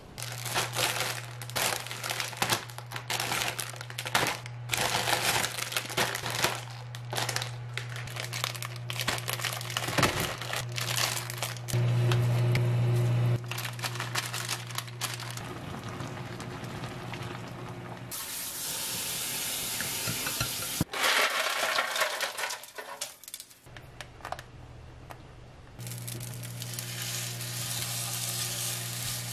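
Kitchen cooking sounds over a steady low hum. Plastic instant-ramen packaging crinkles and clicks, and the dry noodle block is shaken out into a pot. Near the end, raw pork belly sizzles as it is laid in a hot frying pan.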